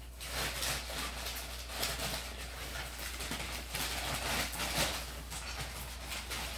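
Handling noise as thrift-store items are unpacked: irregular rustling with light knocks, over a steady low hum.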